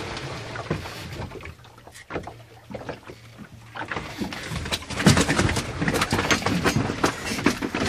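Hard western rock lobster shells knocking and scraping against a plastic cooler as the lobsters are handled, a string of clicks and clatters that gets busier and louder about five seconds in.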